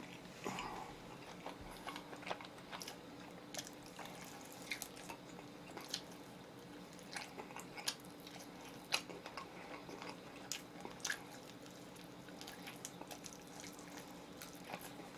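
Faint chewing of oven-roasted chicken, with scattered small clicks and crunches, over a low steady hum.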